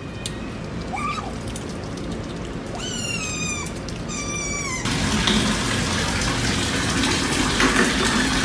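Asian small-clawed otters calling: a short squeak about a second in, then a run of high, falling squeaks. About five seconds in, water starts running steadily into a plastic tub.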